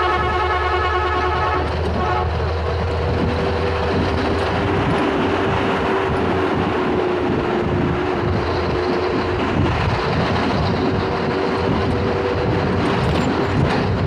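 A road vehicle running steadily, with engine drone and road and wind noise. A horn blares for the first second or two, then gives a short second toot.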